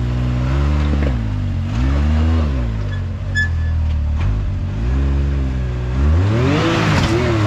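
Can-Am X3 Turbo side-by-side's turbocharged three-cylinder engine revving up and down in repeated throttle bursts as it climbs a rocky obstacle line. A louder rush of noise comes near the end.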